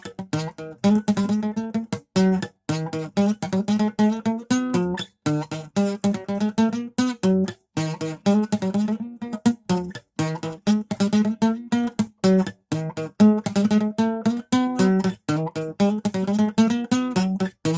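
Acoustic guitar played solo: an improvised riff of short notes and chords in quick succession, many cut off sharply with brief silences between them.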